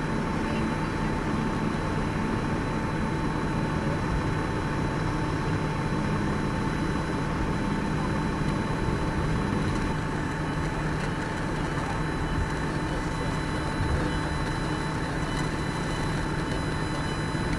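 Steady low rumble of idling vehicle engines, with a constant thin high-pitched whine over it.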